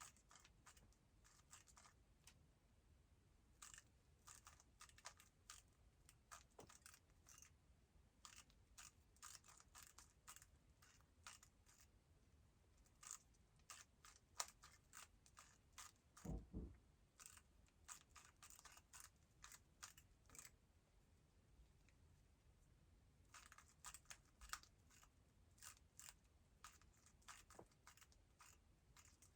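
Faint clicking and clacking of a MoYu WRM 2020 speedcube's layers being turned by hand, in quick runs of turns separated by short pauses. A single dull knock comes about halfway through.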